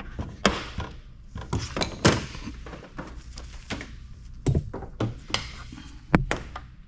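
A string of irregular knocks and clunks as a microfiche reader is handled and its power cord is cut off.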